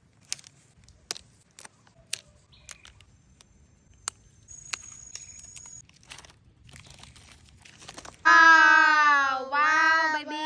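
Scattered sharp clicks, crunches and light crinkling rustles, with a faint thin high tone in the middle. About eight seconds in, a high-pitched voice starts up loudly, holding long notes that fall in pitch.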